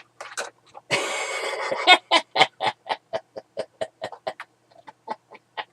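A man laughing: a loud breathy burst about a second in, then a long run of short chuckles, about four a second, slowly fading.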